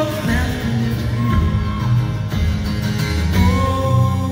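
Live band music between sung lines: acoustic and electric guitars playing over a steady low accompaniment, with long held melody notes in the middle and near the end.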